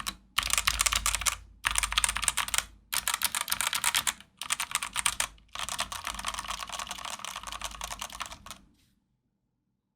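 Womier WK61 61-key mechanical keyboard being typed on fast, a dense run of key clicks in five bursts with short pauses between them, stopping about nine seconds in.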